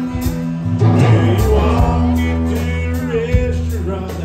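Live band playing a slow rock song: electric and acoustic guitars over a steady bass line and drum kit with evenly spaced cymbal strokes, with a man singing lead.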